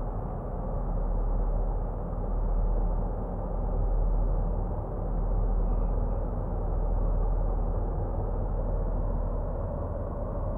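Steady low rumble of a passing motor cargo barge's diesel engine carrying across the water, swelling and easing slightly every second or two.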